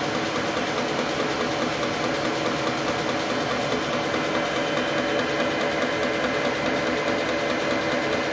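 Milling machine running, its end mill side-cutting along the edge of a metal bar clamped in the vise: a steady machine hum with several steady tones and no break.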